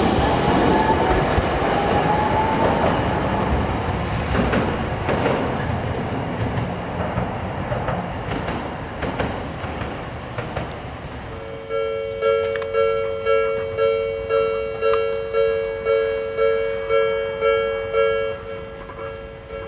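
A Toden Arakawa Line tram running past and fading away, with a rising whine in its first few seconds. Then, about twelve seconds in, a level-crossing warning bell rings about twice a second for some six seconds and stops.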